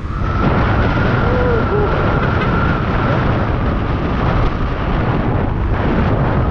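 Wind buffeting the microphone on a Honda PCX 160 scooter cruising at about 60 to 70 km/h, with engine and road noise underneath. A thin steady whine runs through the first few seconds.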